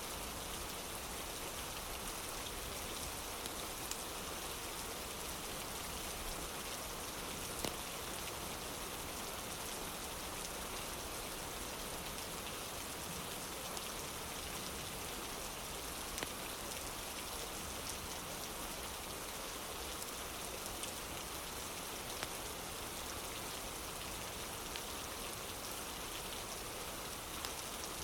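Steady rain falling on a wooden porch, an even hiss with no change, with a few isolated sharp crackles from a fireplace scattered through it.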